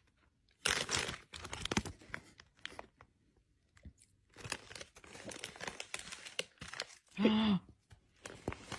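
Crinkling and rustling of a foil Doritos chip bag being handled, in two spells of crackly bursts. A short low vocal sound, the loudest moment, comes about seven seconds in.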